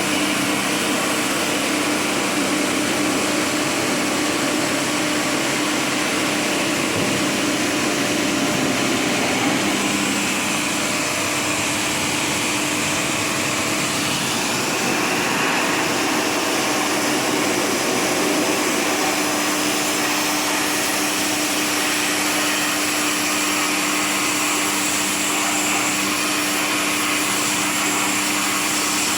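Electric pressure-washer pump running steadily with a constant hum, its water jet hissing as it washes the AC unit's coils.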